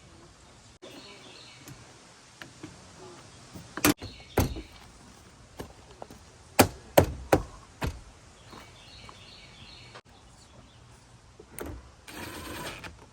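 A Jeep door trim panel being pushed and knocked back onto the door, with about six sharp knocks and snaps between four and eight seconds in. A short rushing noise comes just before the end, and birds chirp faintly.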